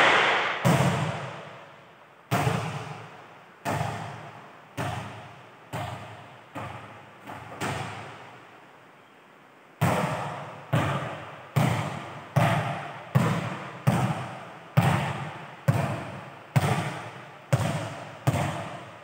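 A volleyball bouncing on a hard court floor in a large echoing hall. First comes a run of bounces that come quicker and softer as the ball settles. After a pause comes a steady series of about ten bounces, roughly one a second, as the ball is bounced repeatedly by hand.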